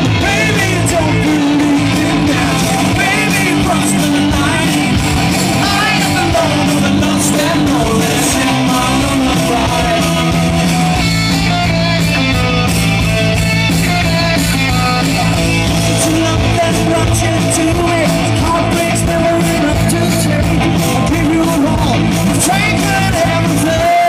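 Live hard rock band playing loud, with electric guitars and a singer's voice over them.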